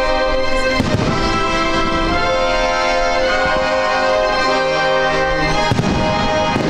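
Music with long held chords plays loudly throughout, while fireworks go off. One sharp bang comes about a second in, and two more come near the end.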